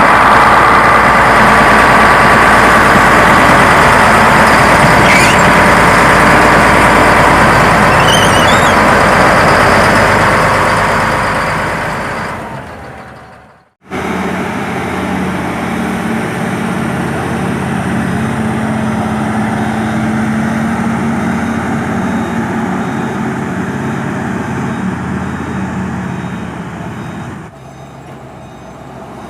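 Nissan TZA 520 logging truck's diesel engine running loud and steady, fading away about thirteen seconds in. After a sudden break it runs again, somewhat quieter, and drops off near the end.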